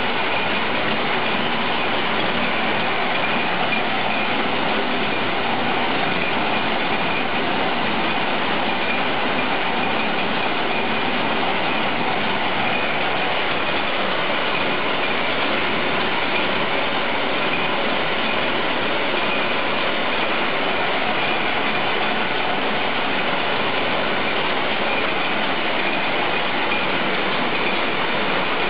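Mat-weaving power loom running, weaving kora grass: a loud, steady, dense mechanical clatter that never pauses.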